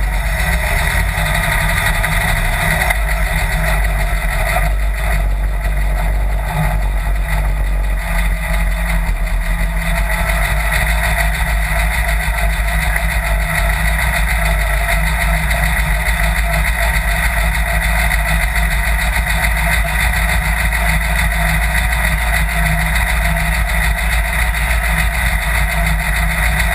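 Sand rail dune buggy engine idling steadily.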